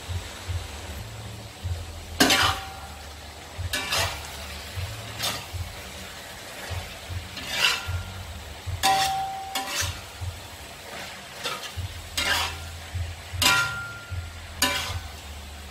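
Stir-frying frog pieces with ginger and green chillies in a wok. A metal spatula scrapes and knocks against the wok at irregular intervals of about a second, some strikes leaving a brief metallic ring. The food sizzles underneath.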